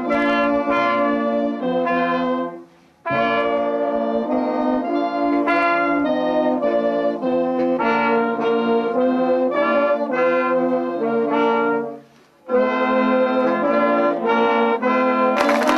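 Brass music: sustained chords from several brass instruments moving from note to note, breaking off briefly twice. Applause breaks in just before the end.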